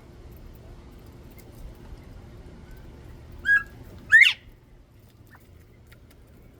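Young bobwhite quail calling twice, about half a second apart: a short level note, then a louder note sweeping upward.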